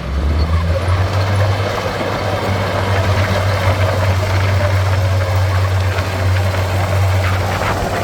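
Heavy earthmoving machine's diesel engine running with a steady low drone, starting abruptly at the beginning and holding constant.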